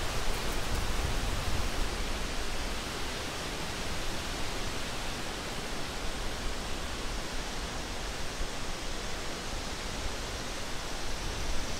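Steady outdoor ambience: an even rushing hiss with a low rumble underneath that eases in the middle and builds again near the end.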